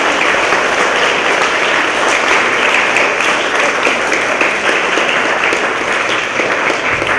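Applause from a large crowd of adults and children, steady and dense clapping with no break.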